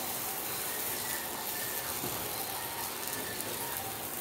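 Eggplant halves frying in hot oil in a frying pan, a steady sizzle.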